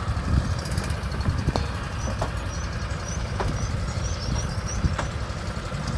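Several go-kart engines idling together: a low, steady rumble with a few sharp clicks over it.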